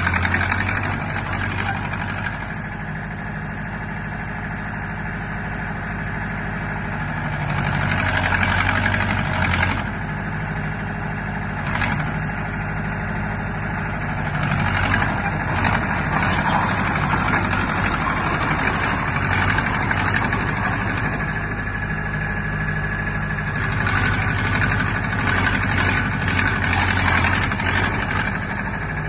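Mitsubishi BS3F crawler loader's engine running steadily as the machine is driven on its tracks and the bucket is worked, getting louder about eight seconds in and again through the last few seconds. A few sharp knocks come through partway along.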